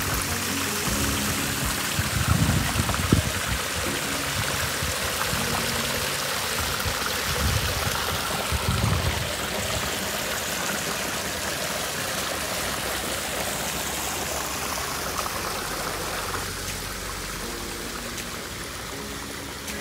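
Small artificial waterfall trickling and splashing steadily over rocks into a lake. A few low rumbles come through about two to three seconds in and again around eight seconds.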